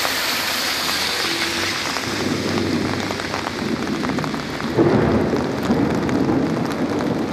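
Rain falling on a wet city street, a steady hiss. A car's tyres swish through the water near the start, and the rush grows louder and deeper about five seconds in.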